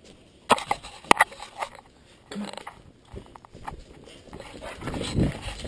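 Dogs' claws clicking and tapping on a tile floor as they move about, with a few sharp knocks about half a second and a second in.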